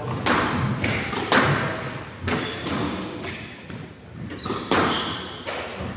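Squash rally: the ball is struck by the rackets and smacks off the court walls, about one sharp hit a second. Each hit echoes in the hall.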